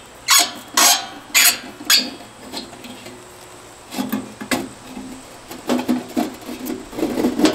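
Screwdriver working the screws of a rusted outdoor breaker panel's sheet-metal cover, then the cover being worked loose. About four sharp metallic scrapes come in the first two seconds, followed by softer scraping, rubbing and light knocks.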